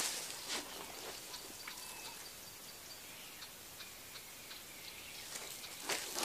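Quiet bush ambience with faint, scattered short chirps and small ticks, and a soft thud about half a second in. Rustling noise builds near the end.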